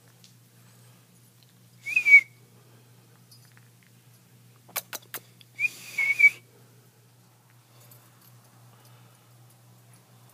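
A person whistling to call a dog back: two short whistles about four seconds apart, the second one wavering up twice in pitch. Three quick sharp clicks come just before the second whistle.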